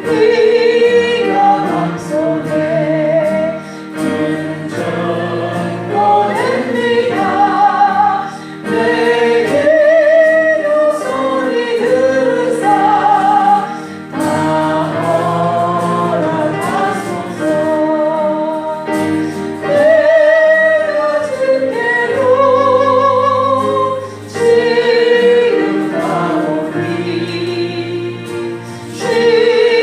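Group singing of a gospel praise song, long held notes in a slow melody over a steady sustained accompaniment, with short breaks between phrases.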